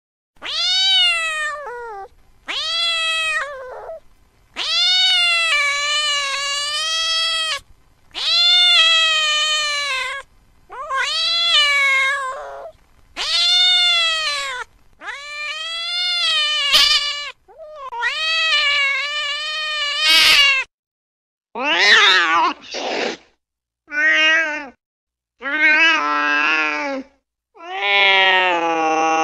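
A domestic cat meowing over and over: about eight long, drawn-out meows, each rising and then falling in pitch, followed near the end by shorter, wavering cries and a long, lower yowl.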